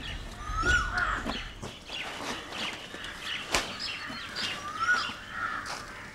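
Birds calling: a few rising-and-falling caws, about a second in and again near five seconds, among scattered high chirps, with occasional sharp clicks.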